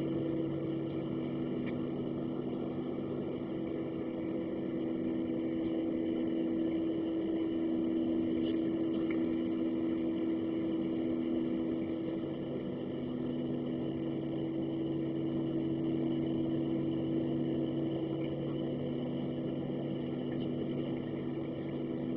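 Boeing 737-700's CFM56-7 turbofan engines idling, heard inside the cabin: a steady hum with a few constant low tones while the aircraft waits for takeoff clearance.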